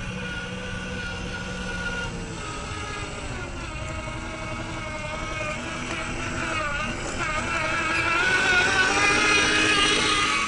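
Whine of a WPL C94 UAZ-469 RC truck's electric motor and gearbox driving off-road, wavering in pitch with the throttle and rising higher and louder over the last few seconds.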